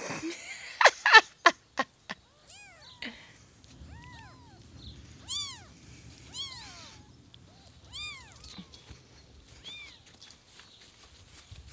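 Newborn kittens mewing: thin, high-pitched arched mews, about one a second. Several sharp knocks in the first two seconds are the loudest sounds, and a faint low rumble runs under the later mews.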